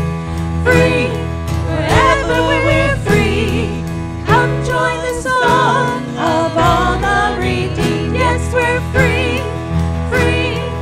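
Band playing a contemporary worship song, with a sung melody over a steady instrumental backing.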